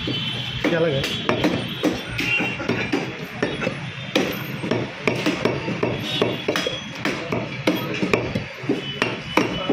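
A heavy butcher's cleaver chopping goat meat into small pieces on a wooden log block: repeated sharp chops, roughly two a second and unevenly spaced.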